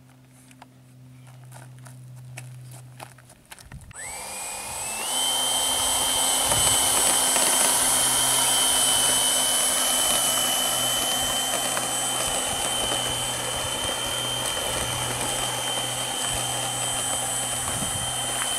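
After a few faint clicks, an RC model jet's twin electric ducted fans spool up about four seconds in with a quick rising whine. They then run steadily at a high, even whine under a strong rushing hiss while the model taxis.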